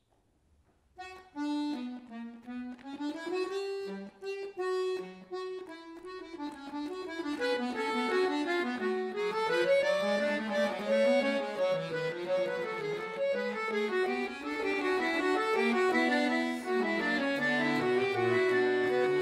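Concert button accordion starting a piece about a second in: short, detached notes in a single line at first, then more lines join and it grows into continuous, fuller and louder playing.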